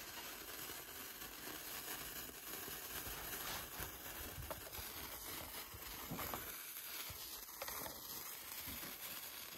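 A cake sparkler fizzing steadily, with small crackles.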